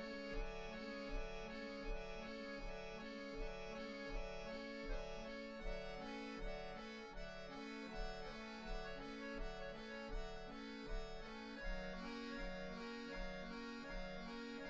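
Accordion duo playing a steady, repeating chordal pattern, with a low note pulsing about every three quarters of a second under held chords.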